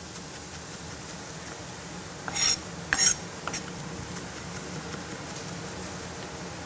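Vegetables sizzling in a hot oiled pan as they are pre-cooked for a stir-fry, with two short scrapes of a utensil stirring them about two and three seconds in.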